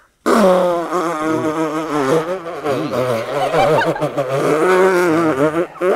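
A performer's voice making one long, warbling gurgle that wobbles quickly in pitch: a comic vocal sound effect of a puppet drinking its tea.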